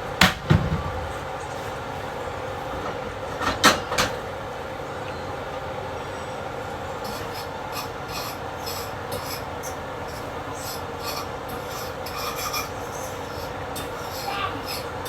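A bowl being washed by hand: a few sharp knocks of the dish near the start and again about four seconds in, then repeated short scrubbing and rubbing strokes over a steady hiss.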